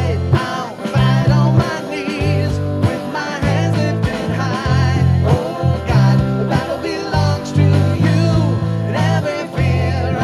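Live worship band playing a rock-style song: steady bass notes, drum hits and guitar.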